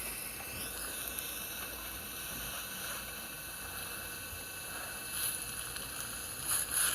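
Steady background hiss with no clear source, with faint brief sounds about five seconds in and again near the end.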